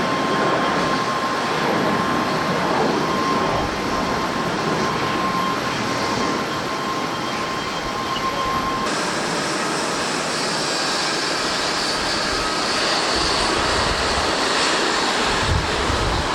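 Boeing 737-800 jet engines heard from the ground as a steady rushing noise. About nine seconds in, the sound switches abruptly to another 737-800, with a brighter hiss.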